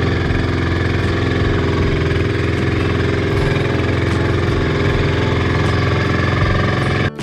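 Small outrigger boat (bangka) engine running steadily, heard from on board; the sound cuts off abruptly near the end.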